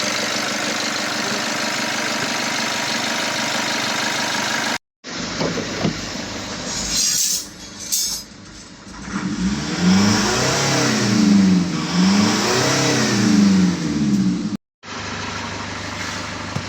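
Nissan Patrol Y61's ZD30 four-cylinder diesel running steadily. After an abrupt cut about five seconds in, it is revved up and down about three times, then the steady running resumes after another cut near the end.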